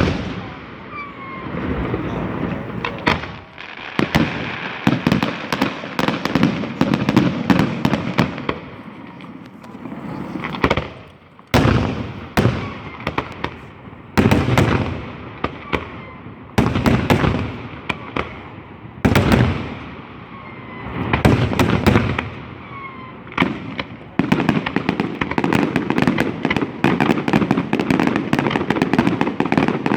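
Fireworks display: a loud bang at the start, then repeated volleys of bangs and dense crackling every couple of seconds, turning into near-continuous crackle for the last several seconds.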